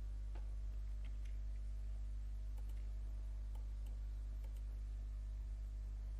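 Steady low electrical hum on the recording, with a scattering of faint, short computer mouse clicks.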